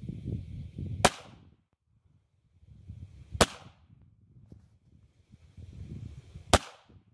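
Three .22 WMR rifle shots from a Rossi RS22M firing Speer Gold Dot rounds, each a single sharp crack: about a second in, midway, and near the end.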